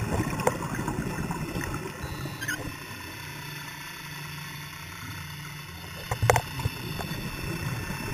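Underwater ambience recorded through a camera's waterproof housing: a low rumbling, crackling noise for the first two or three seconds, then a steadier low hum, and a few sharp clicks a little after six seconds, the loudest sounds.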